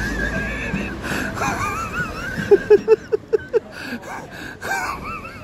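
A person laughing under their breath: high, squeaky, wheezing laughter, then a run of about six short laughs in the middle.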